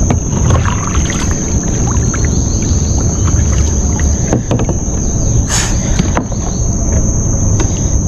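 A steady high-pitched insect drone over a low rumble, broken by water splashing at the side of a kayak and a few sharp knocks as a hooked snapper is brought alongside.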